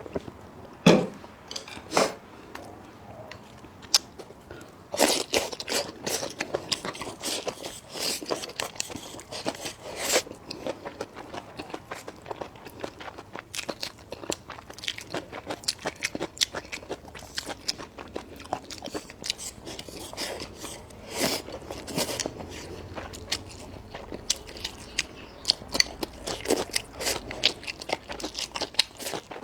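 Close-miked eating: a person biting and chewing crunchy food, with many sharp crackles and a few louder bites.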